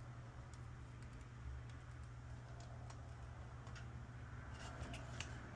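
Faint, scattered clicks of a multimeter probe tip tapping and scraping on relay pins and solder joints of a washer control board, with a small cluster about five seconds in, over a steady low hum.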